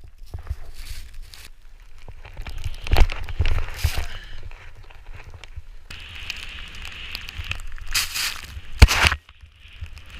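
A snowboard cutting through deep powder snow, with wind rumbling on the microphone; several louder swooshes come through, the loudest near the end.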